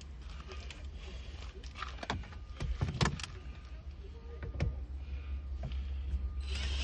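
Scattered clicks and light knocks of hands working loose plastic interior car door trim, over a low steady hum. Background music comes in near the end.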